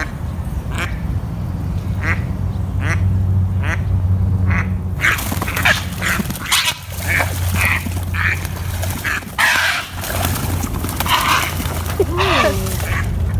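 A mother duck quacking over and over as she goes for a heron: spaced calls at first, then from about five seconds in a rapid run of quacks mixed with splashing and wing flaps. A steady low hum lies underneath.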